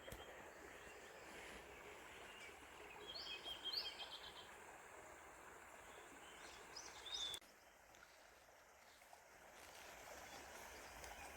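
Quiet outdoor ambience with a few faint bird chirps, a short run of them about three seconds in and another near the seven-second mark.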